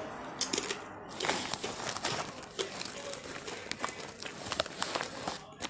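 A Takis snack bag crinkling and rustling as it is handled, with many small sharp crackles.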